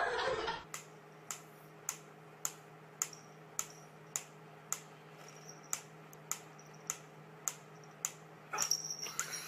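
Sharp clicks repeating evenly, a little under two a second, over a faint steady hum, with a short noisier stretch near the end.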